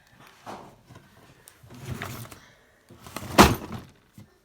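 Rummaging through craft supplies, objects being handled and shifted, with one loud knock about three and a half seconds in.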